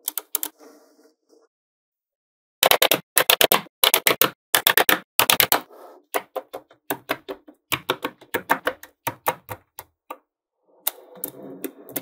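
Small magnetic balls clicking sharply as strips of them snap together, in a quick run of clicks lasting several seconds. Near the start and again near the end there is a softer rattle of the balls shifting in the hands.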